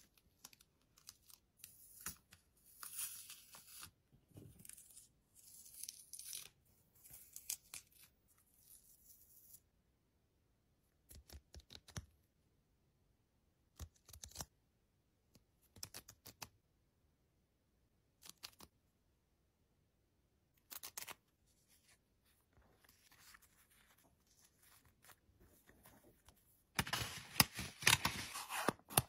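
Kraft-paper stickers being peeled off their backing sheet and handled: soft, short scratchy rustles and ticks with quiet gaps between them. Near the end comes louder, denser crinkling as a sheet of kraft paper is handled.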